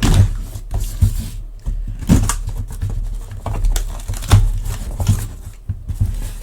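A cardboard shipping box being handled and opened by hand: an irregular run of knocks, thumps and scraping, with some tearing of cardboard or tape.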